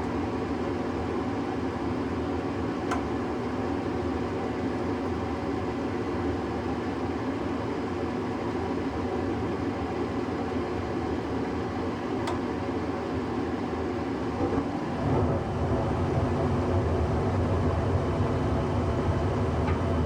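1994 Tempstar SP80 gas furnace starting up with its cover off: the draft inducer motor running with a steady hum and a couple of faint clicks. About 15 seconds in, a deeper, louder rumble joins as the burners light.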